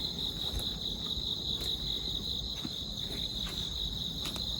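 Crickets chirping in a steady, unbroken high-pitched trill, with a low rumble and a few faint clicks beneath.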